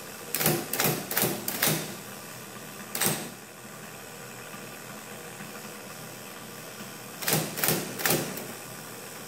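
1940s IBM Electromatic electric typewriter, its motor running steadily while keys are tried one by one: a run of about five type-bar strikes at the start, a single strike about three seconds in, and about four more near the end. Several keys, Y and F among them, work only sometimes or not at all.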